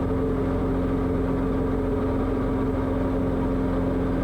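Piston engine and propeller of a Diamond light aircraft droning steadily at climb power just after takeoff.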